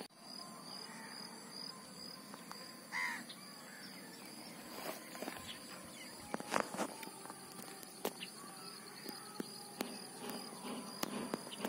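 Quiet pondside ambience: a faint steady high hum, and a single short bird call about three seconds in. A few light clicks come later.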